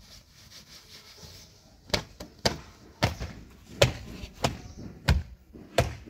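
A rag wiped and slapped against the cab and bodywork of a JCB 3DX backhoe loader: soft rubbing, then from about two seconds in a run of about seven sharp thumps, roughly every two-thirds of a second.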